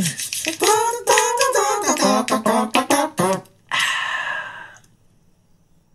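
Song with a singing voice over a clicking beat, ending on one held note that stops about five seconds in.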